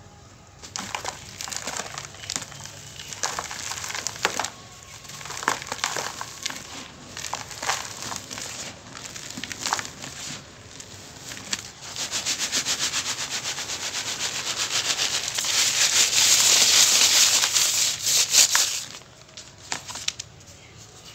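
Dry cement block crumbling between the hands in irregular gritty crunches, the powder pattering onto a plastic colander. About halfway in it turns into a fast, steady gritty rattle as the powder is shaken through the colander. The rattle grows louder and stops abruptly near the end.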